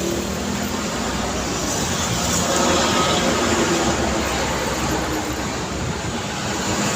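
Street traffic: vehicle engines and tyre noise passing steadily, with no single vehicle standing out.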